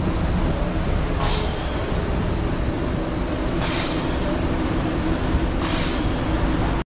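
Steady low rumble of vehicle traffic, with three short hisses about two and a half seconds apart. It cuts out abruptly just before the end.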